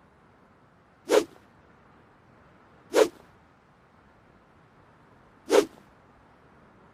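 Longsword swung through the air: three short, sharp swooshes about two to two and a half seconds apart.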